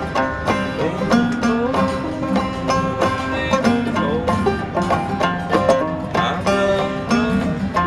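Clawhammer banjo playing an instrumental passage of a modal, neither-major-nor-minor tune, with rapid picked notes over a constant drone.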